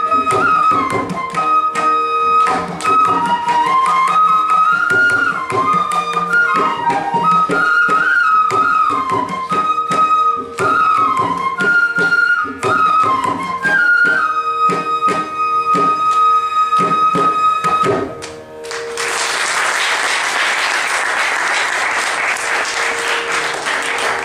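Carnatic bamboo flutes playing a gliding melody in unison over mridangam strokes, closing on a long held note. After about eighteen seconds the music stops and applause follows.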